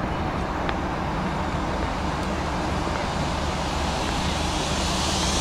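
Steady outdoor ambience: an even low rumble with a hiss over it, growing slightly louder and brighter near the end.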